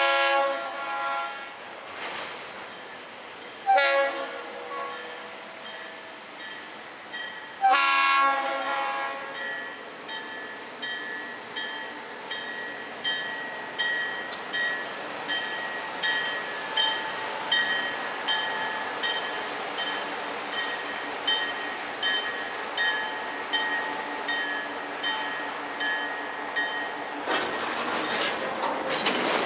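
Florida East Coast diesel locomotive's air horn blowing three blasts for a grade crossing, the third held longest. After that a warning bell dings about once a second while the freight train rolls across the crossing with a light clickety-clack of wheels on rail.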